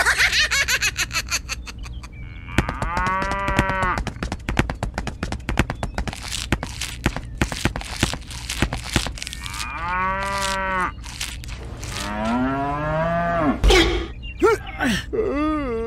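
Cows mooing several times, each call rising and then falling in pitch, over a dense run of quick clicks. A heavy thump comes near the end.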